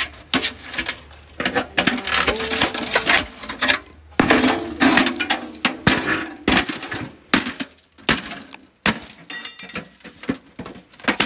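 Thin sheet-metal bucket being hacked with a heavy blade and pried with pliers to strip out its iron rim band and wire handle: irregular sharp metal strikes and clanks, with two longer stretches of grating, tearing scrapes in the first half.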